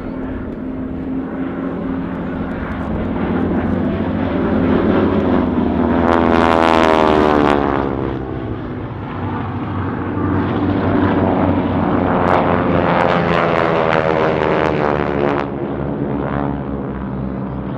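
North American Harvard trainers' radial engines and propellers droning as the planes make low passes. The sound swells to its loudest about six to eight seconds in, dips, then swells again through a longer pass from about ten to fifteen seconds in.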